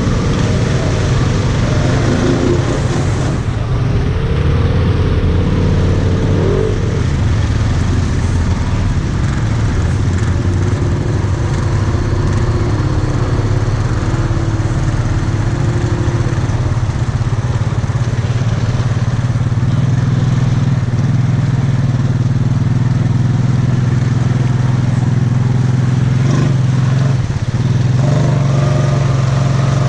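ATV engine running steadily while riding along a trail, its pitch rising and falling slightly with the throttle, getting a little louder near the end.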